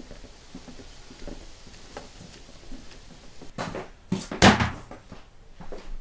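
Raw lamb carcass halves dropped onto a wooden board on a wooden table: a few heavy, wet thuds about four seconds in, the loudest one about half a second later.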